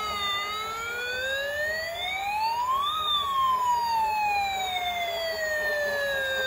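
Battery-operated toy fire truck's electronic siren wailing: one slow wail that rises for about three seconds, then slides back down over the next three and a half.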